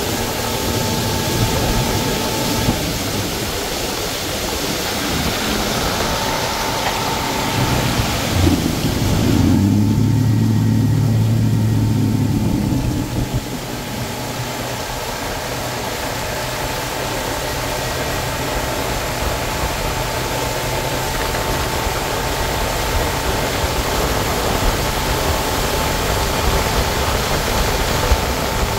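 Motorboat under way at speed: the engine runs steadily with a thin whine over the rush and splash of water thrown off the hull. For a few seconds near the middle the engine note turns louder and deeper, then drops back abruptly.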